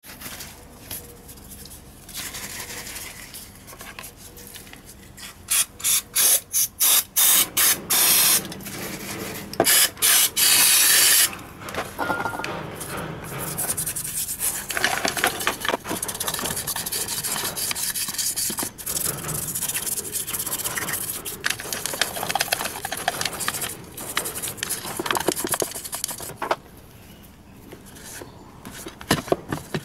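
Aerosol cleaner sprayed onto a VW Golf 4 1.6 throttle body in a series of short bursts, then one longer spray about ten seconds in. A toothbrush then scrubs the throttle body's bore, and near the end a rag wipes it.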